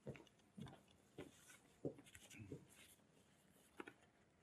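Faint footsteps of a person walking away, a soft step about every half second or a little slower, dying out toward the end.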